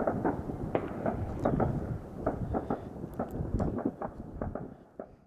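Aerial fireworks bursting: an irregular run of dull bangs and crackles, several a second, dying away near the end.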